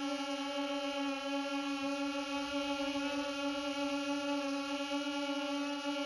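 Parrot Swing minidrone's propellers and motors humming in flight, one steady pitched drone with many overtones and a slight waver. It is picked up by a camera mounted on the drone itself.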